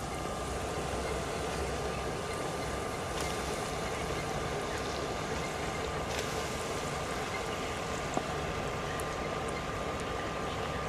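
Potato French fries sizzling steadily in hot oil in a pan, with a faint steady tone throughout and a few light clicks.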